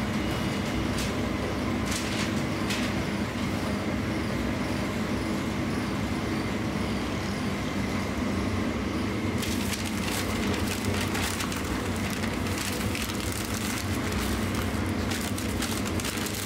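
Steady low background hum throughout. From about halfway on, irregular crinkling and rustling of paper as a toasted sandwich is folded into wrapping paper.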